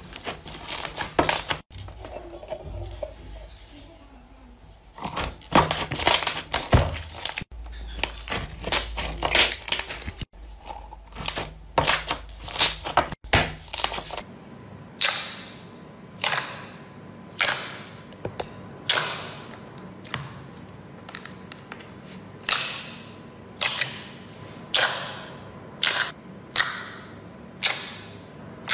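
Hands squeezing and pressing slime: irregular sticky squelches and crackles, then in the second half a steady run of short sharp pops and clicks, about one a second, as fingers push into a tub of glossy slime.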